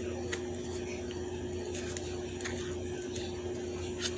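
Steady low electrical hum in a small room, with a few faint clicks and rustles from a notebook and marker being handled.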